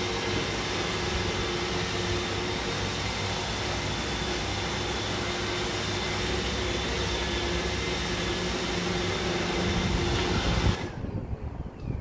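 iRobot Roomba i7 robot vacuum cleaning: a steady motor-and-brush noise with a thin whine in it. It cuts off suddenly near the end, followed by a few low knocks.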